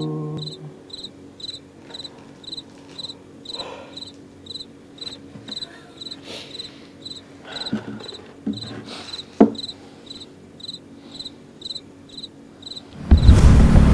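Night ambience of a cricket chirping steadily, about two chirps a second, as the last notes of an acoustic guitar fade out at the start. A few soft knocks and one sharp click come midway, and about a second before the end a sudden loud rumbling noise sets in.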